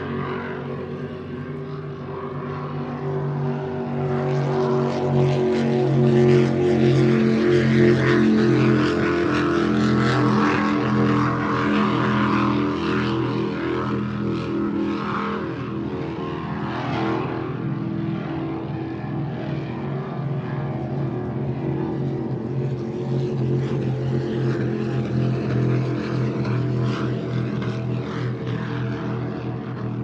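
Propeller-driven seaplane's engine droning as it passes. It grows louder over the first several seconds, eases off, then swells again near the end.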